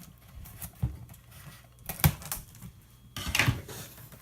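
Cardboard box being handled and turned on a table: a few sharp knocks and taps, then a short scraping rustle about three seconds in.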